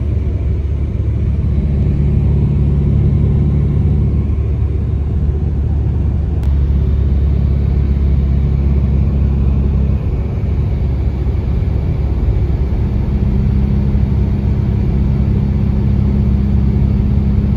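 Steady road noise inside a moving car's cabin: low engine and tyre hum, with a brief dip about ten seconds in.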